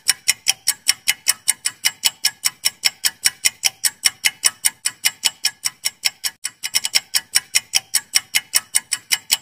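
Countdown-timer clock-ticking sound effect: fast, even ticks, about five a second, with a brief stumble a little past halfway. It cuts off suddenly at the end.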